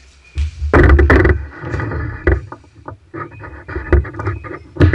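Handling noise: irregular knocks, scrapes and rustling from someone moving close and taking hold of an electrical power cord, loudest about a second in.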